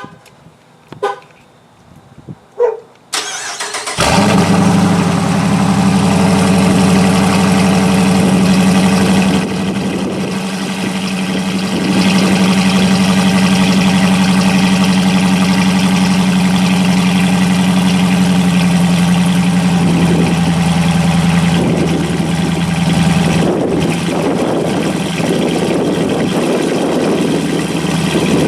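A few short clicks, then about four seconds in the 2015 Dodge Challenger R/T's 5.7-litre Hemi V8 starts and settles into a steady idle with a deep drone. It runs through a Solo Performance cat-back exhaust with a single muffler. The sound drops off briefly around ten seconds in, then returns.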